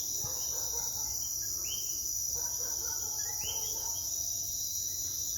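Night chorus of insects trilling steadily, with coquí frogs calling several times, each chirp sweeping upward in pitch.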